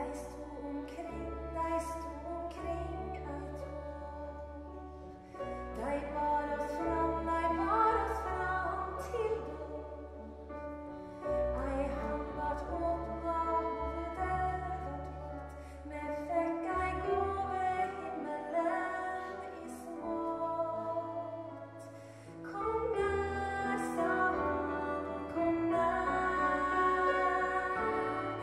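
Live acoustic music from piano and accordion over sustained low bass notes, with a female solo voice singing a slow, hymn-like song.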